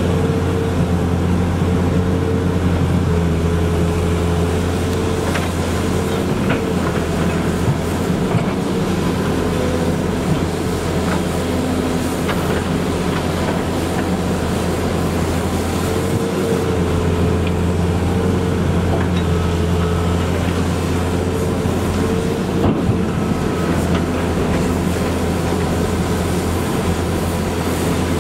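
Heavy diesel engine of a Volvo crawler excavator running steadily under digging load, with a higher whine coming and going over the deep hum and a few short knocks.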